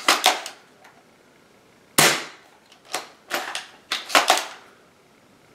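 Bolt of a spring-powered M62 airsoft sniper rifle being worked: a series of sharp plastic-and-metal clicks and clacks, with the loudest single snap about two seconds in. The bolt pull is stiff, a hard pull against the spring.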